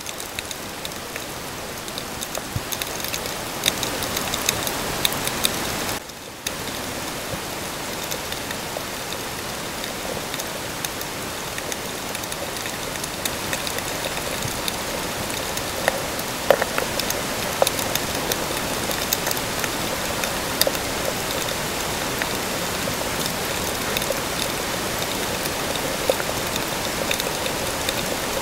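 Underwater crackling hiss, a dense fizz of many tiny clicks and ticks, as heard by an underwater camera, with a brief dip in level about six seconds in.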